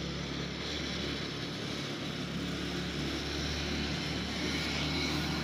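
Steady low drone of a distant engine, even in pitch and level throughout.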